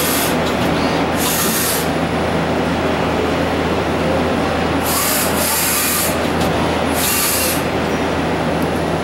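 Vertical twin-spindle CNC lathe machining a metal flange: a steady machine drone and rough cutting noise, with several short bursts of high hiss.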